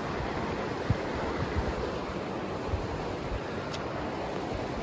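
River water rushing over a shallow, rocky bed: a steady wash, with a few low thumps from wind or handling on the microphone, the strongest about a second in.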